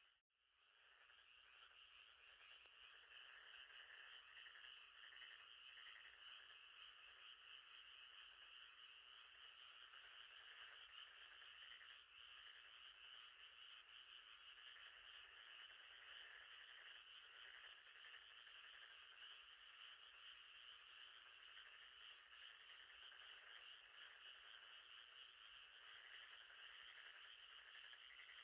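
Faint night chorus of frogs: a dense, continuous trilling that drops out at the very start and fades back in over about a second.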